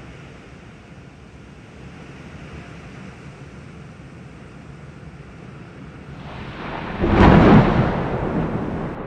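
Heavy rain pouring steadily, then a clap of thunder: it builds about six seconds in, cracks loudly a second later and rumbles away toward the end.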